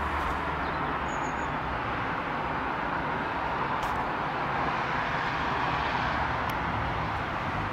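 Steady wash of outdoor urban background noise, with a couple of faint clicks.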